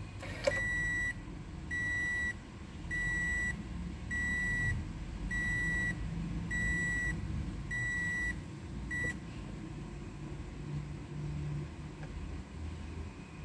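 Toyota Innova's dashboard warning chime beeping: eight even, high-pitched beeps about one every 1.2 seconds, beginning just after a click and stopping with another click about nine seconds in.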